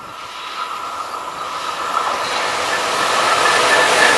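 SNCF BB 27000 electric locomotive approaching along the track, its rolling noise growing steadily louder, with a steady high ringing tone running through it.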